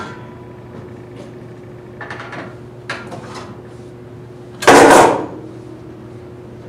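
Light knocks of props being shifted on a wooden tabletop, then one loud thud about four and a half seconds in as a desk globe is set down on the table, over a faint steady hum.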